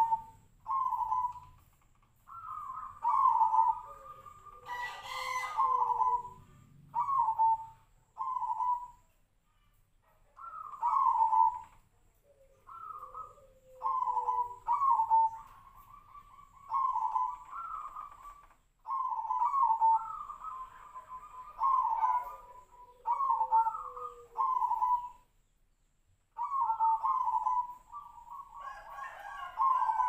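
Zebra dove (perkutut) cooing in short repeated phrases of quick notes every second or two, pausing briefly twice, with fainter lower, falling coos underneath at times. A short hiss about five seconds in.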